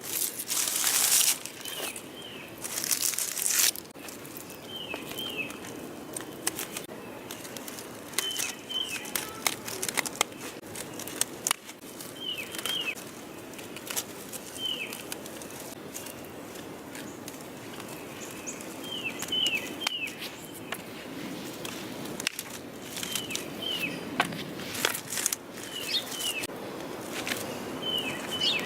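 Dry perennial stems rustling and hand pruners snipping as an old veronica clump is cut back, with two loud rustling bursts in the first few seconds. A bird repeats a short high chirp, usually twice in quick succession, every few seconds.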